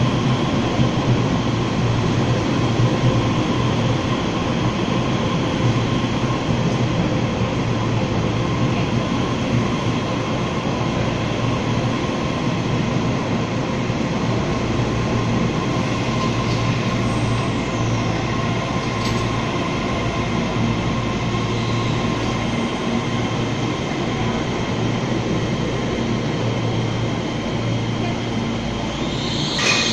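Taiwan Railways EMU3000 electric multiple unit moving along an underground station platform: a steady, echoing rumble of wheels and running gear with a faint steady whine.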